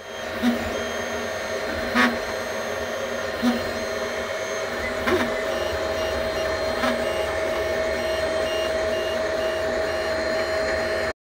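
FDM 3D printer running a print: a steady whir of cooling fans with a steady whine from the stepper motors, and a light tick about every second and a half during the first seven seconds or so.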